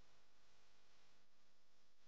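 Near silence: only a faint steady background hiss.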